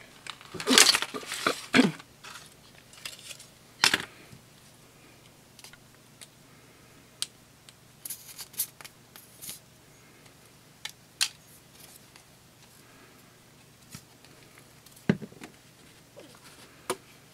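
Hands handling a cardstock letterbox and craft supplies on a tabletop: a loud rustling scrape about a second in, another short one near four seconds, then faint rustles and scattered light taps and clicks.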